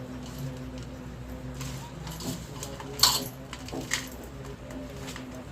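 Utensils clinking: a sharp metallic clink about three seconds in and a few softer knocks, over a steady low hum.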